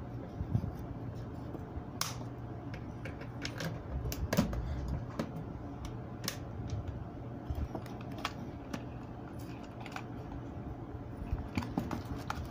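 Scattered light clicks and taps as fingers handle the plastic housing and terminals of an Entes MCB-20 time relay, over a steady low hum.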